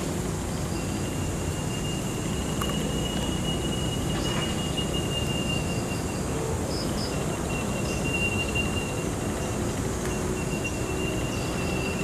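Steady low background rumble, with a thin, high, steady tone that starts about a second in and drops out twice.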